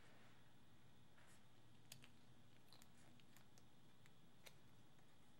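Near silence, with a few faint clicks as a screwdriver turns out the small head-adjustment screw on an 8-track player's tape-head mount; the clearest click comes about two seconds in.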